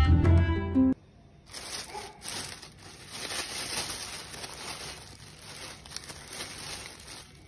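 Thin plastic carrier bag rustling and crinkling as a hand rummages through the vegetables inside it. Music plays for the first second, then stops abruptly.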